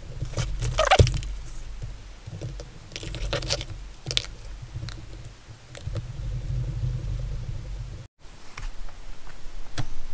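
Light clicks and rustles of small plastic and metal RC car parts being handled while small 3×6 mm bolts are driven in with a hand driver, over a low steady hum.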